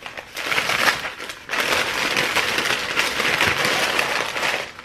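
White paper wrapping crinkling and rustling as it is pulled off a glass syrup bottle, with a short break about a second and a half in.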